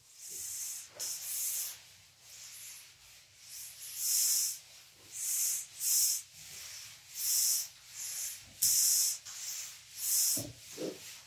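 Handheld whiteboard eraser wiping across a whiteboard in about a dozen hissing strokes, roughly one a second.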